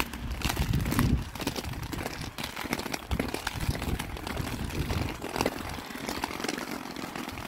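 Inline skate wheels rolling over a paved path: a steady rumble with many small irregular clicks, and a stronger low rumble during the first second.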